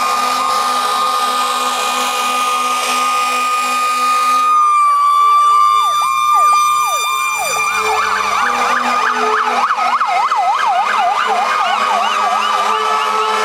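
Several fire engine and ambulance sirens sounding at once. A held wailing tone gives way, about four and a half seconds in, to a blast of an air horn. A fast yelp siren then warbles up and down, about two or three cycles a second, through the second half.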